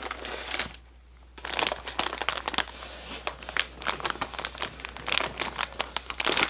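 Plastic snack packaging crinkling and crackling as it is handled, with a brief pause about a second in.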